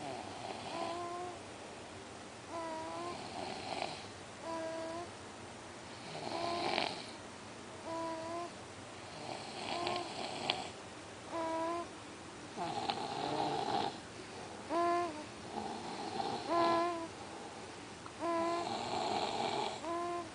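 A baby and a grown man snoring together. Short, high, pitched snores come about every one and a half to two seconds, between longer, breathier snores about every three seconds.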